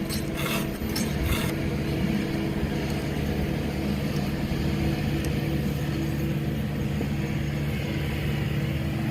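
An engine or motor running steadily with an even low hum, with a few light clicks in the first second and a half.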